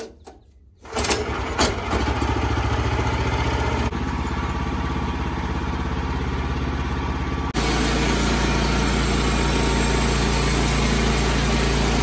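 Small gasoline engine of a Wood-Mizer LX25 portable bandsaw mill catching about a second in and running steadily. About seven and a half seconds in it steps up to a louder, higher-revving run as it is throttled up to drive the saw.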